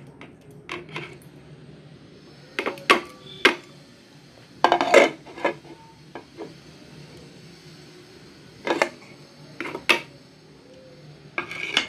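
A plate knocking and clinking against a stainless steel bowl as ground spices are tipped and tapped off it: irregular sharp knocks, some in quick clusters of two or three.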